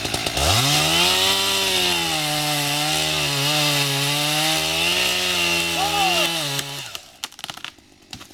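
Two-stroke chainsaw opened up to full throttle about half a second in, held at high revs while felling a tree. The throttle is released about seven seconds in, leaving scattered sharp cracks and knocks.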